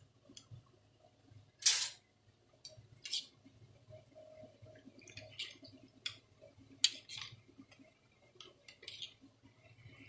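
Metal spoon clinking and scraping against a steel plate while ground spice masala is mixed, in irregular taps and scrapes, the loudest a little under two seconds in.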